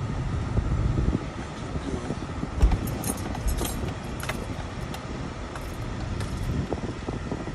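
Low rumble of a car's engine and tyres heard from inside the cabin as it drives slowly into a gas station, with a dull thump about two and a half seconds in and a scatter of light metallic clicks and jingles, like ignition keys swinging, through the middle.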